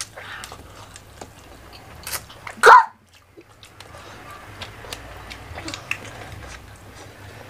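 Quiet eating sounds: fingers picking at rice and roast chicken, with small wet clicks of chewing. One short loud cough about two and a half seconds in.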